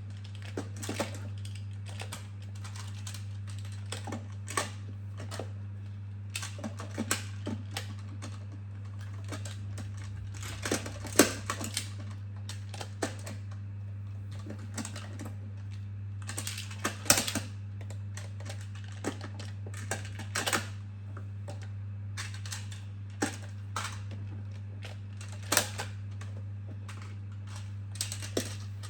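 Plastic magnetic building tiles clicking and clacking against each other at irregular intervals as they are picked up and snapped together, over a steady low hum.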